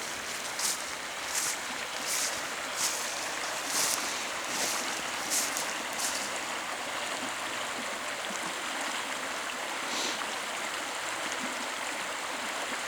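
Footsteps on the ground, about one step every three quarters of a second, which stop about six seconds in. Under them runs a steady rushing noise.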